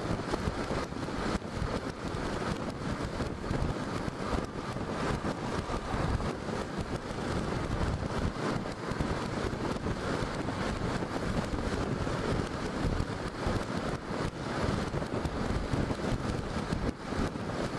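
Steady wind rush and buffeting on a helmet-mounted microphone from a Honda NC700X motorcycle cruising at about 45 mph, with the engine and road noise underneath.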